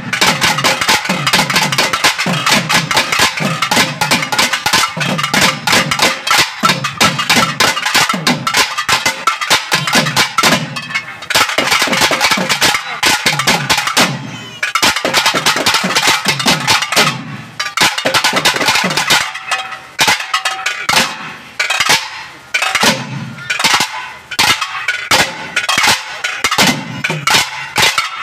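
Tamil Naiyandi melam folk ensemble playing loud, fast music: rapid thavil drumming with a shrill nadaswaram-type reed melody above it and repeated deep drum strokes that sag in pitch.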